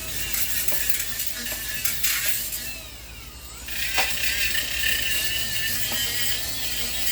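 Power tool spinning a sanding pad against metal, its whine wavering under load; about two and a half seconds in it winds down with a falling pitch, then starts up again sharply about a second later.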